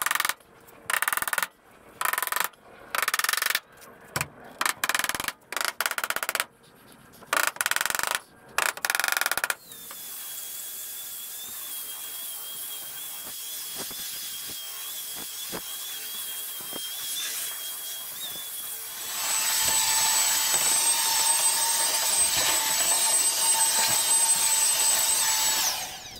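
A hammer drives nails into hardwood fence-paling boards in a quick series of loud blows. Then a Ferrex belt sander runs steadily with a thin whine on the timber edge. From about nineteen seconds a louder hose-fed cleaning machine runs steadily, with a high whine, until it cuts off near the end.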